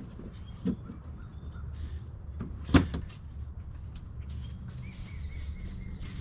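Scattered small clicks and handling knocks, with one sharp loud knock about three seconds in, over a low steady rumble. Faint short bird chirps come and go in the background.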